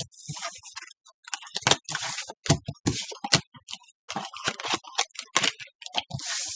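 Tarot cards being laid down and slid across a wooden tabletop: an irregular run of quick slaps, clicks and scrapes.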